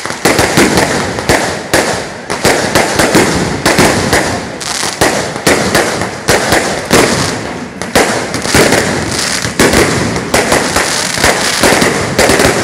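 A long string of firecrackers going off, loud, rapid bangs crackling on without a break.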